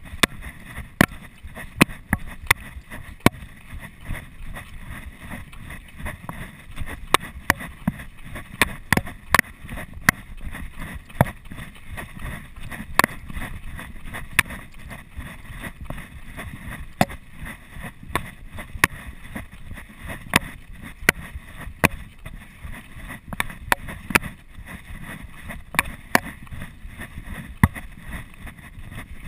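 Footfalls of a runner going down a dirt trail, heard through a chest-mounted GoPro Hero 2 as sharp, regular knocks about one and a half a second, over a steady rushing noise.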